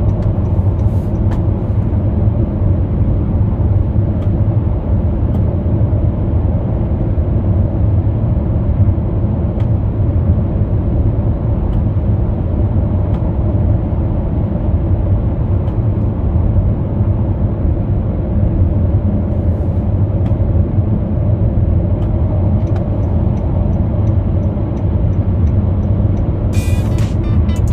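Honda Vezel at highway speed, its steady road, tyre and engine noise heard from inside the car. Near the end there is a run of faint, evenly spaced ticks.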